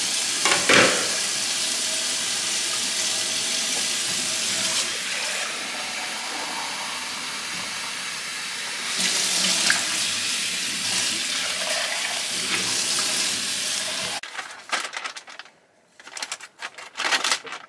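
Tap water running into a stainless steel sink while dishes are rinsed under the stream: a steady splashing rush that gets louder around nine seconds in. It stops suddenly about fourteen seconds in, followed by a few short knocks.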